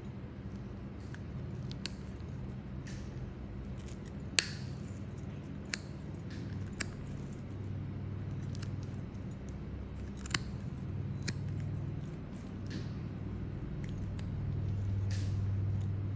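Steel nail nippers cutting through a thick, crumbly toenail: about ten sharp clicks at irregular spacing, the loudest about four seconds in and again near ten seconds. A low, steady hum runs underneath.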